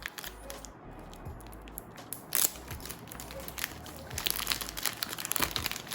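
Packaging crinkling and crackling in irregular bursts as a small accessory box is opened and unwrapped by hand.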